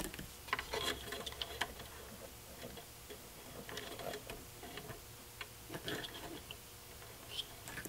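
Faint, scattered plastic clicks and rattles in a few short clusters as wiring connectors and adapter plugs are handled and fitted at the back of a plastic headlight housing.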